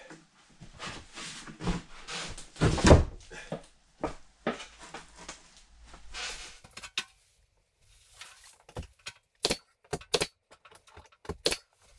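Spruce panelling boards being handled and fitted against the wall, with scuffs and wooden thunks, then from a little past halfway a quick, irregular run of sharp clicks and knocks.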